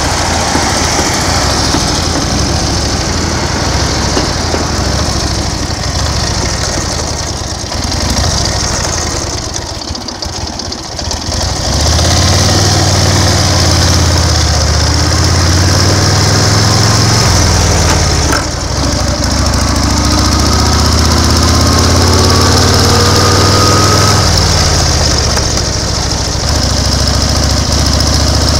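A passenger train passing over a level crossing, heard over a 1930 BSA 770 cc V-twin motorcycle engine idling. About twelve seconds in, the motorcycle's engine becomes the loudest sound as it pulls away, and its pitch rises over several seconds as it accelerates.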